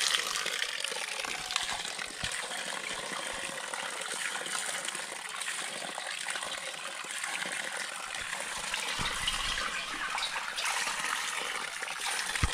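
Water gushing steadily from a trailside water source on a mountain trail. The source is running strong, with plenty of flow to collect.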